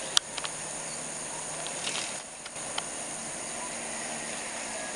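Steady high-pitched insect chorus, with a sharp click just after the start and a few fainter ticks later.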